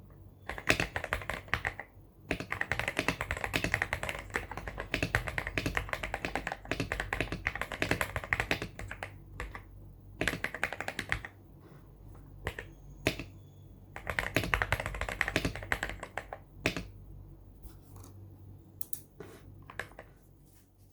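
Weikav WK75 Pro mechanical keyboard with MMD Cream linear switches and PBT keycaps being typed on: fast runs of keystrokes in bursts with short pauses, thinning after about 11 seconds to separate single key presses, with one more fast run in the middle of that stretch.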